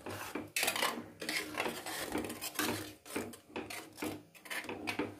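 A metal spoon stirring sago and milk in a stainless-steel Healux pan, scraping and clinking against the pan's bottom and sides in repeated irregular strokes.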